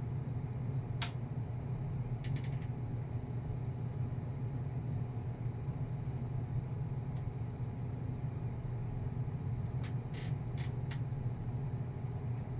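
Steady low whirring of computer fans, with a few light clicks about a second in, again around two seconds in and a cluster near the end.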